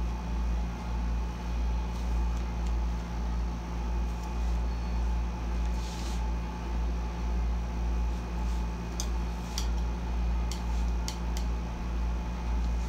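Air conditioner running at full blast: a steady low hum that swells and fades in an even, slow throb. A few faint clicks come in the second half.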